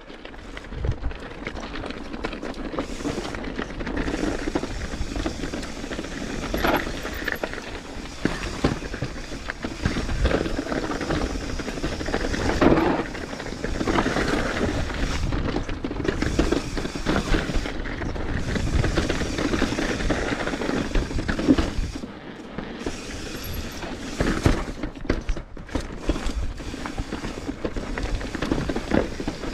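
Mountain bike riding down a rocky trail: tyres rolling over rock and loose gravel, with frequent knocks and rattles from the bike over the bumps.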